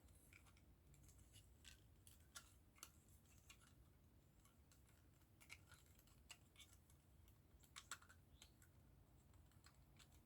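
Faint, irregular light clicks and taps of small plastic model-kit parts being handled and pressed together.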